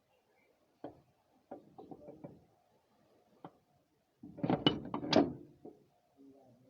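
Metal clicks and knocks from work on a tractor gearbox: a few separate strikes, then a louder cluster of clattering knocks about four to six seconds in.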